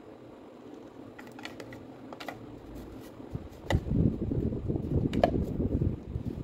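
Handling noise from reassembling a Makita M8700 rotary hammer: a few light clicks as the barrel is turned in the gloved hands, then, from a little under four seconds in, louder rubbing and knocking as it is fitted into the gear housing.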